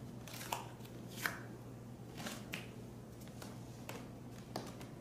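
Short, soft rustles and puffs of breath from a woman doing side crunches on a foam exercise mat, about five in the space of a few seconds, over a faint steady low hum.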